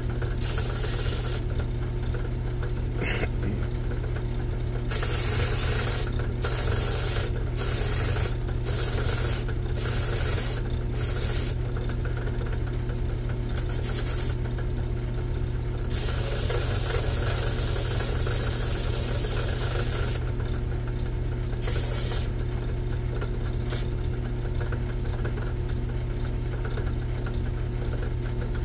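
Sanding drum spinning in a power drill's chuck, its motor humming steadily, while a hand-held wooden crankbait body is pressed against it in repeated short strokes of sanding hiss. One longer, continuous pass comes a little after the middle.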